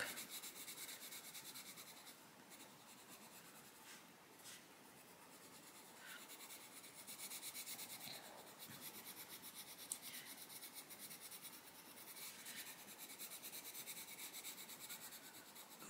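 Faint, quick back-and-forth strokes of an Arteza Expert coloured pencil shading on colouring-book paper, a soft steady scratching.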